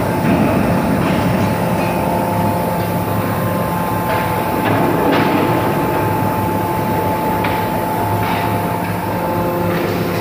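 Steady industrial machinery hum: a drone with several steady tones, with a few light metal clanks scattered through it. There are no heavy hammer blows.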